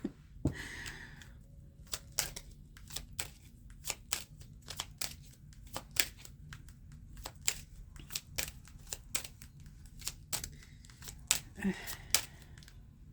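Tarot cards being shuffled and handled: a long run of irregular light snaps and taps.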